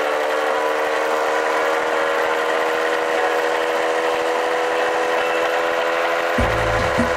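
1997 Kinetic Luna TFR 50cc two-stroke moped engine running steadily as the moped is ridden along at cruising speed, with a steady drone and road and wind hiss. Near the end a low rumble with knocks comes in.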